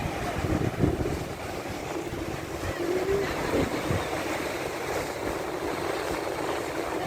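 Wind buffeting the microphone over a steady rushing background noise, with gusty low rumbles.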